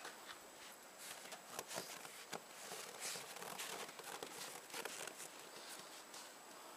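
Faint, irregular crunching and crackling of footsteps in snow: scattered small crunches a few times a second over a steady hiss.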